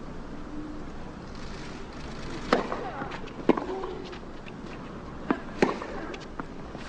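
Tennis rackets striking the ball on a clay court: a serve and the opening shots of a rally, heard as a few sharp hits one to two seconds apart over a quiet stadium hush.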